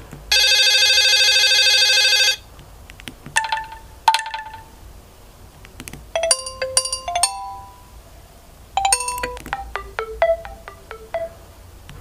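Ringtone previews from a Nokia 6300 4G's speaker, played one after another as the ringtone list is scrolled. First comes a loud, buzzy tone lasting about two seconds, then several short chiming melodies, each cut off after a second or so.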